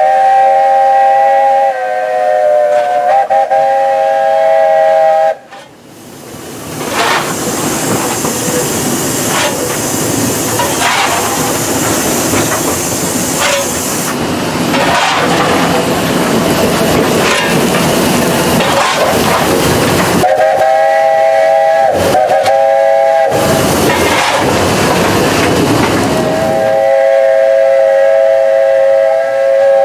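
Steam locomotive whistle heard from inside the cab of a South African Railways class 19D, sounding a chord of several notes in three long blasts: one at the start, one about two-thirds of the way in with a brief break, and one near the end. Between the blasts the noisy running of the moving engine fills the cab, with a regular beat.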